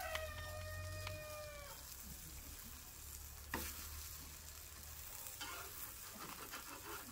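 Pupusas sizzling faintly on a hot griddle. A chicken gives one drawn-out call in the first two seconds, and there is a single light knock about halfway through.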